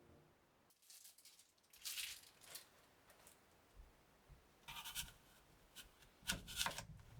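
Kitchen items being handled during food prep: several short bursts of rustling and scraping, the loudest near the end.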